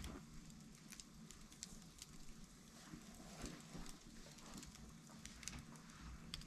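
Wood campfire crackling faintly, with scattered sharp pops at irregular intervals.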